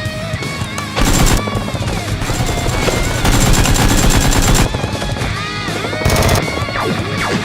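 Bursts of rapid automatic gunfire, a short burst about a second in, a longer one in the middle and another short one near the end, over background music.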